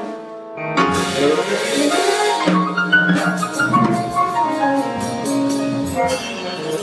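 Live jazz quintet playing: tenor sax, bass trumpet, piano, double bass and a drum kit. After a brief dip in the first second the whole band comes back in, with a falling run of notes about halfway through and drum and cymbal strokes through the second half.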